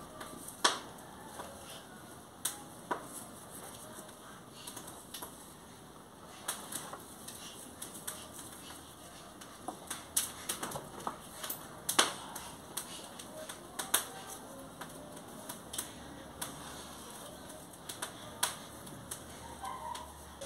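Irregular sharp clicks and taps, some much louder than the rest, from loose marigold petals and the plastic tub being handled as the petals are scattered over the table.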